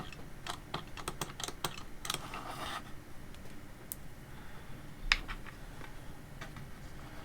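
Small parts of a plastic-bodied soldering iron being handled on a desk during disassembly: a run of light clicks and taps, a brief scrape a little after two seconds in, and a sharper click about five seconds in.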